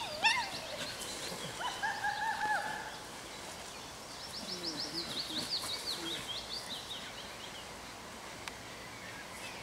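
Dog whining: high whines that fall in pitch, then a held whine, during the first three seconds. A faint, fast high trill follows, likely a songbird.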